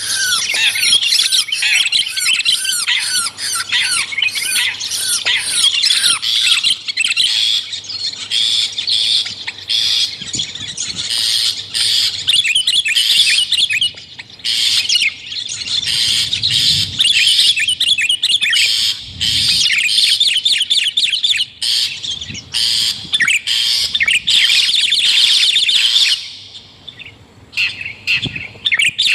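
Bird-lure recording of long-tailed shrike calls mixed with sooty-headed bulbul calls: a dense, rapid run of harsh chattering calls, breaking off briefly near the end and then starting again.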